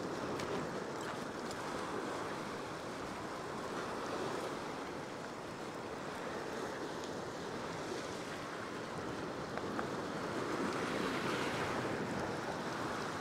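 Ocean surf washing and breaking against a rock platform, a steady rushing wash that swells louder about ten seconds in.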